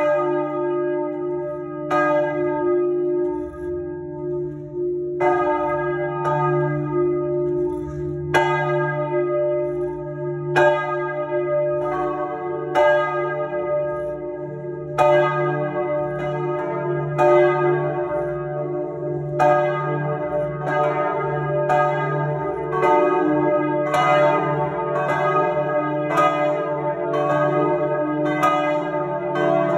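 Three 1860 Perrin-Martin bronze church bells swinging and ringing together in full peal, heard close up inside the belfry. Their clappers strike at uneven, overlapping intervals, coming closer together in the second half, over a deep hum that carries on between strokes.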